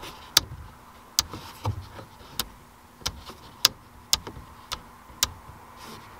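Sharp plastic clicks, one or two a second and unevenly spaced, from a hand working an LED bulb in and out of the clips of a truck's overhead map light housing.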